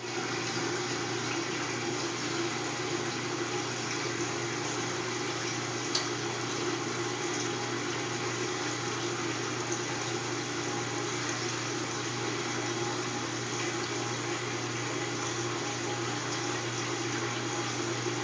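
Kenmore 70 Series top-loading washing machine draining at the start of its spin cycle: water running out through the drain pump over a steady motor hum, with the drum not spinning. This is a fault that, according to the owner, lifting and closing the lid clears, even after the lid switch and timer were checked. A faint click comes about six seconds in.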